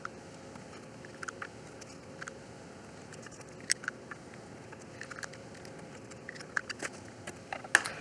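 Scattered light clicks and plastic rattles as USB plugs and adapters are pulled out and handled, disconnecting the board's power, over quiet room tone.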